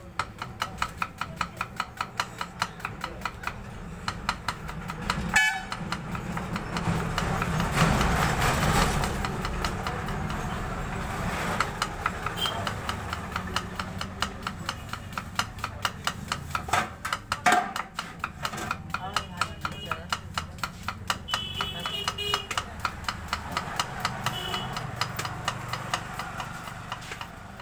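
A large kitchen knife slicing red onions against a wooden chopping board: a quick, steady run of chops, about three a second, with a few louder knocks. Under it there is a low background rumble that swells about eight seconds in.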